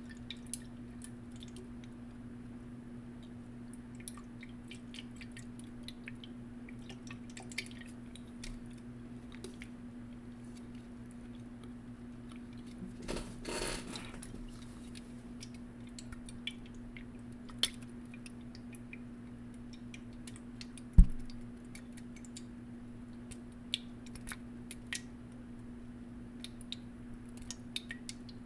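A person chewing and eating, with many small wet mouth clicks over a steady low hum. There is a brief rustling patch about halfway through and one sharp knock about 21 seconds in, the loudest sound.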